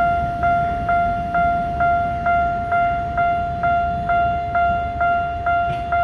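Ginza Line level crossing warning bell ringing, a single ding repeated evenly just over twice a second, each one fading before the next.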